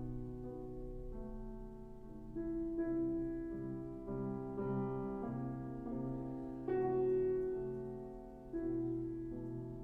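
Slow piano music played back through a NAD 3020 amplifier and loudspeakers, with sustained notes and chords struck every second or two and left to ring.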